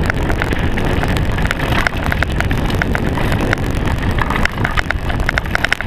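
Mountain bike coasting fast down a dirt trail without braking: wind rumbles on the GoPro microphone, with many short clicks and rattles from the bike and trail.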